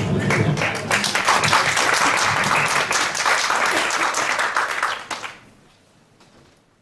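Audience applauding, many hands clapping together, then fading away about five seconds in.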